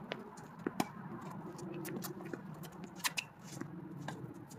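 Tennis balls popping off rackets and bouncing on a hard court during a doubles rally: a handful of sharp pops, two close together about two-thirds of a second in and two more about three seconds in, over a low steady background.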